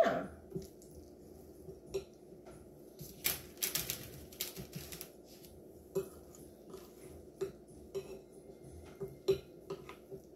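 Spoons knocking and scraping in a glass mixing bowl of thick cookie dough: scattered light clicks and taps, with a busier run of them a few seconds in.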